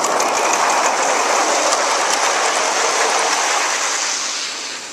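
A Gauge 1 model goods train running past close by, its wagon wheels clicking over the rail joints in a rushing clatter that swells as it arrives and fades away near the end.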